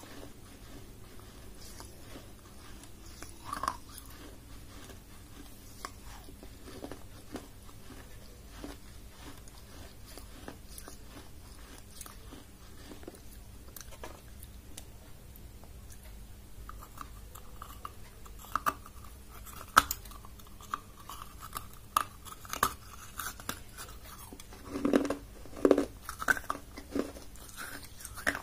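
Close-up chewing and crunching of pieces of a baked clay cup, with scattered small clicks and a few louder crunches near the end.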